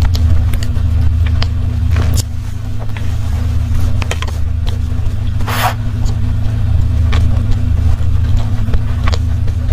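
Soft sponge cake being chewed right at a clip-on microphone: small scattered mouth clicks and a short breathy hiss about five and a half seconds in, over a steady low hum.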